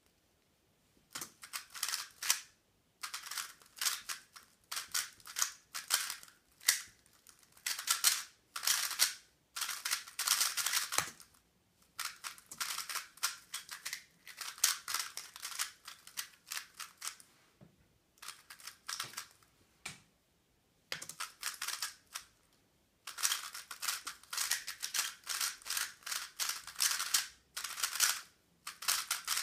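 A 3x3 speedcube turned at speed: rapid plastic clicking and clacking of the layers in dense bursts, broken by short pauses.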